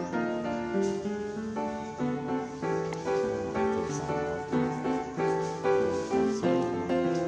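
Background piano music, a steady run of notes over chords.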